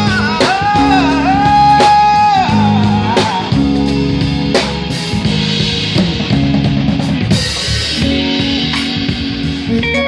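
Live rock band playing: an electric guitar plays a lead line of bending, sliding held notes over low bass notes and a drum kit with repeated hits.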